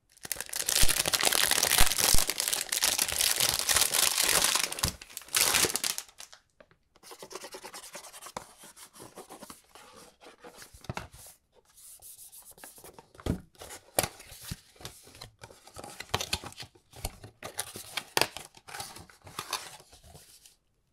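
A perfume box's packaging being torn and crinkled, loud and continuous for about six seconds. Then quieter rubbing and scraping of cardboard with scattered light taps and clicks, as the box is opened and the bottle taken out.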